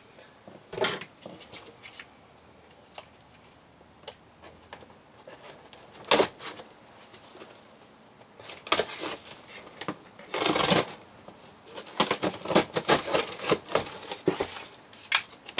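Cardboard shipping box being opened and unpacked by hand: scattered rustles, scrapes and taps of cardboard and packing. A longer rustle comes about ten and a half seconds in, and a busy run of rustling and knocks follows near the end.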